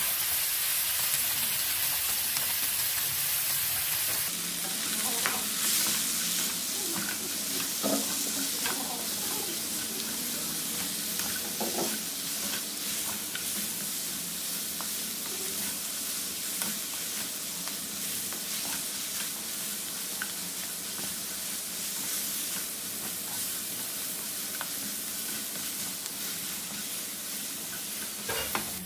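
Lamb and sliced onions sizzling in hot oil in a metal wok, with a wooden spatula scraping and knocking against the pan as they are stirred.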